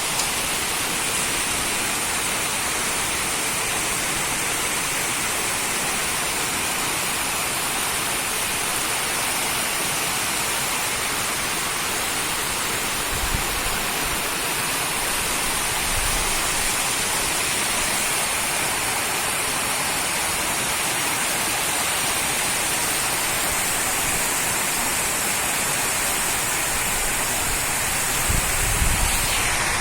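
Heavy rain pouring steadily, with a couple of brief low rumbles, one about thirteen seconds in and one near the end.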